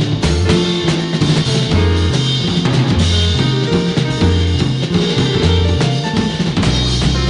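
Background music with a steady drum-kit beat and a bass line.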